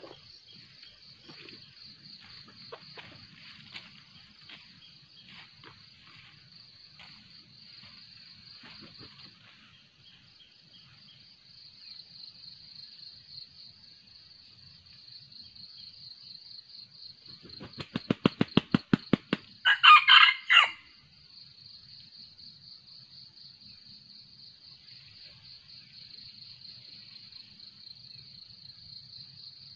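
A red jungle fowl rooster beats its wings in a quick run of about a dozen flaps, then crows once, a short crow, a little past halfway through. A steady high-pitched insect chorus runs underneath.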